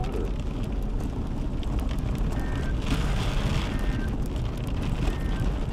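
Vehicle driving on a wet dirt road, heard from inside the cabin: a steady low rumble of tyres and engine mixed with wind, scattered clicks, and a few short faint beeps in the second half.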